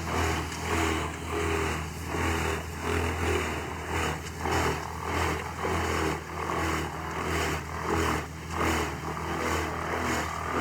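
Large wood chipper shredding trees: a steady engine drone with a rhythmic rise and fall in loudness, about one to two surges a second, as the machine chews through the wood.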